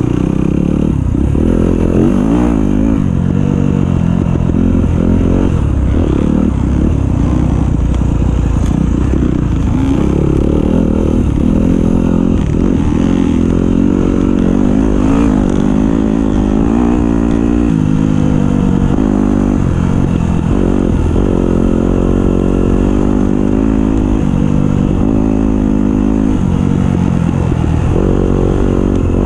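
Dirt bike engine heard close up from the bike, revving hard under race load, its pitch rising and falling over and over with throttle and gear changes.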